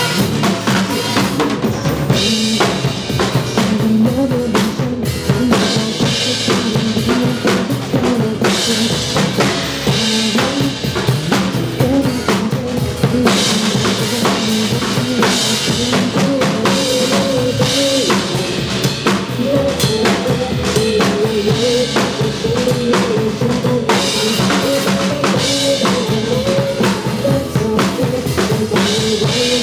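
Drum kit played steadily along to a recorded pop backing track, with dense kick and snare hits under the song's melody and cymbals washing in and out every few seconds.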